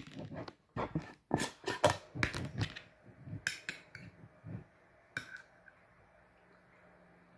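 Metal screw lid coming off a glass jar of jam, then a teaspoon clinking and scraping against the glass as jam is scooped out. A quick run of clicks and knocks fills the first three seconds, with a few scattered clicks after.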